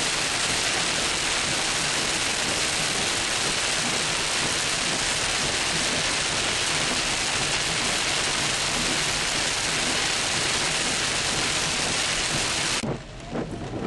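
Heavy rain on a car's roof and windshield: a loud, dense, steady hiss. About 13 seconds in it cuts off abruptly to a much quieter sound of scattered drop taps.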